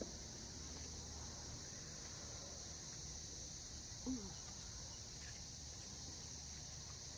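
Steady, high-pitched chorus of insects, with one brief low sound about four seconds in.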